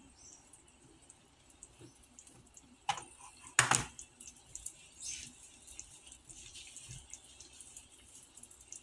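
Pumpkin pieces in coconut milk simmering in a pot, with faint bubbling and small pops. Two sharp knocks about three seconds in, the second the louder.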